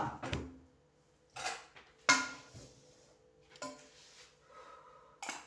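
Kitchenware handled on a counter: a cooking pot set down, then a few separate knocks and clinks of pots and utensils, the loudest a sharp ringing clink about two seconds in.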